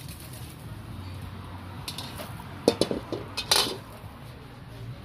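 Metal kitchen utensils and dishes clattering and clinking, a handful of sharp knocks clustered between about two and three and a half seconds in, over a low steady hum.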